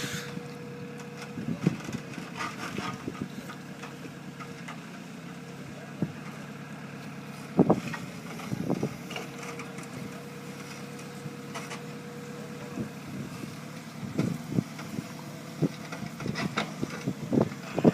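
Heavy construction machine's engine running steadily with a steady whine over it, and occasional metallic knocks: one sharp knock a little before halfway and a run of them near the end.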